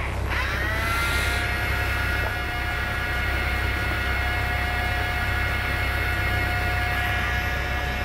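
Electric fishing reel's motor whirring as it winds line, spinning up to speed about half a second in and then holding a steady pitch, over a low rumble.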